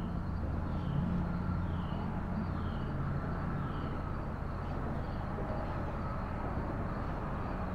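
Steady low motor hum, with short high chirps falling in pitch about once a second through the first half.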